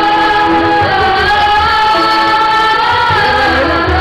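A group of schoolchildren, boys and girls, singing together in chorus into microphones, holding long notes that slide to a new pitch about a second in and again near the end.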